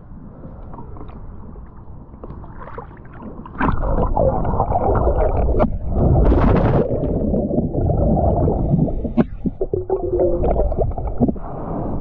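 Underwater water noise: low rumbling and gurgling with scattered clicks and knocks, fairly quiet at first and much louder from about four seconds in. A short wavering tone sounds near the end.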